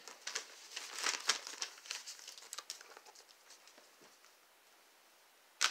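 Crinkling and rustling of something being handled, a quick run of small crackles over the first three seconds that then dies down, with one sharp click near the end.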